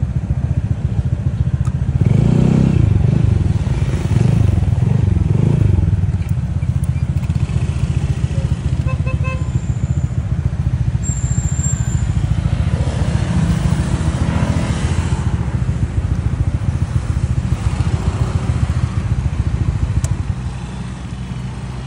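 Motor scooter engine running under the rider as it pulls away and rides along the road, loudest about two to six seconds in, then quieter near the end as it comes to a stop.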